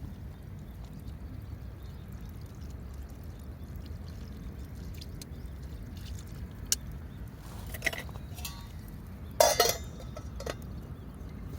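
A few light clinks of hard objects, then a louder short clatter about nine and a half seconds in, over a steady low rumble.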